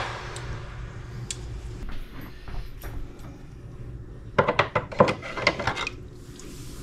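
Light metallic clinks and clicks of a tempered steel knife blade held in pliers being handled at a kitchen sink: a few scattered clicks, then a quick run of clinks a little past the middle.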